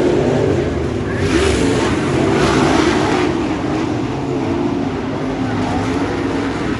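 A pack of dirt-track super late model race cars running their V8 engines hard around the oval. The engines swell loudest from about one and a half to three seconds in as cars pass close, then settle into a steadier drone.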